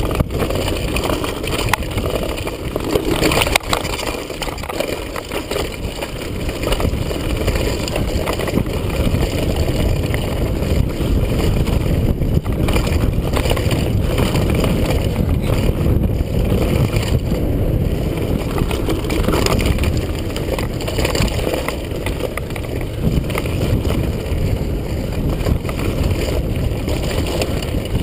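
Rush of wind over a helmet-mounted GoPro HD camera, mixed with the constant clatter and rattle of a Kona Stinky Deelux mountain bike tearing down a rough dirt trail at speed, with one harder knock about three and a half seconds in.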